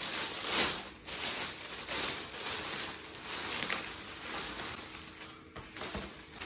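Thin plastic carrier bag rustling and crinkling in irregular bursts as it is handled and opened and a plastic-packed cake is lifted out of it.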